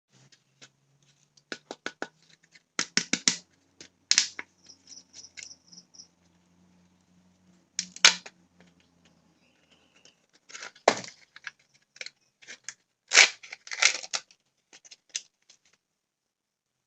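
Candy and chocolate-egg wrappers being handled and opened by hand: irregular crinkles, clicks and sharp snaps of foil and plastic packaging in short clusters, the loudest about 8 and 13 seconds in.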